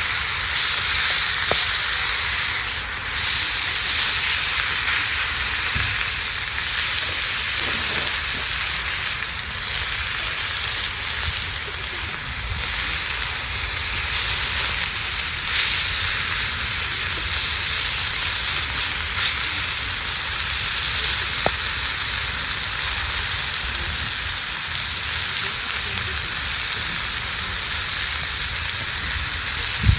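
Steak sizzling over a campfire: a steady frying hiss with a few faint pops.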